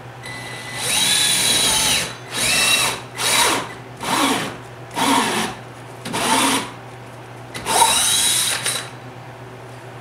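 Cordless drill spinning a hole saw into a rubber car floor mat, triggered in seven runs: the first and last about a second long, the five between them shorter, with the motor's pitch sagging under load. The drill is too weak to cut through the rubber.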